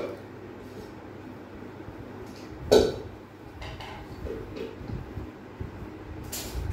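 A single sharp clink about three seconds in, over a steady low rumble, with a few soft rustles of nylon rope being drawn through a knot.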